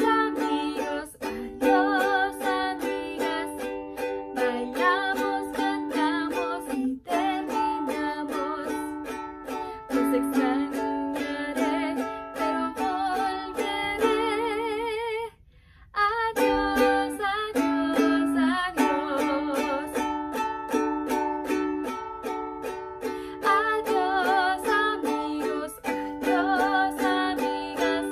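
A woman sings a song to her own strummed ukulele accompaniment in a small room. The playing and singing stop for under a second about halfway, then go on.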